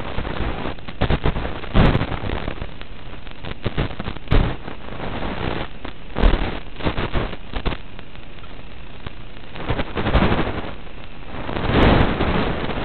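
Steady hiss with irregular bursts of crackling static from an analog FPV video link's audio channel as the signal breaks up. The loudest crackles come about six seconds in and again near the end.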